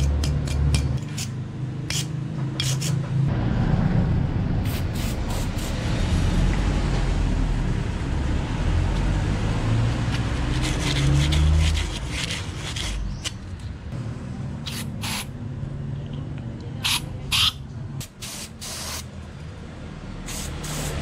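Aerosol spray hissing for several seconds, typical of a lubricant or cleaner can being sprayed on brake parts, with scattered sharp metallic clicks of tools. A low steady rumble runs underneath.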